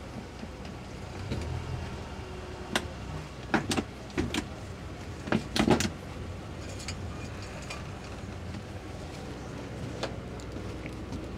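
Boat engines running steadily at low speed, with a cluster of sharp knocks and clunks between about three and six seconds in.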